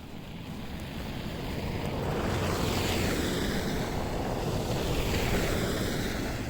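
A road vehicle passing close by, its tyre and road noise swelling to a loud rush and then fading, with a falling sweep in pitch as it goes past.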